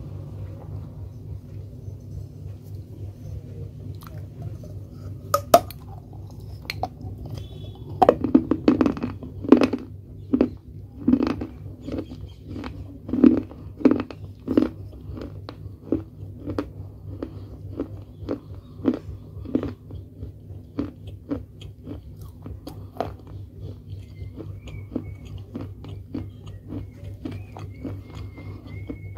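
Biting and chewing pieces of a baked clay pot: sharp, crisp crunches that come thick and loud from about eight to fifteen seconds in, then thin out to slower chewing. A steady low hum runs underneath.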